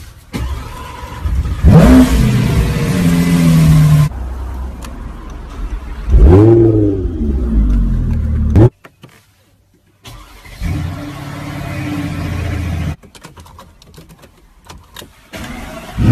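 Car engines revving through their exhausts in a string of short clips: sharp revs that rise and fall in pitch about two and six seconds in, then a steadier engine run, and another rev at the end, with abrupt cuts between clips.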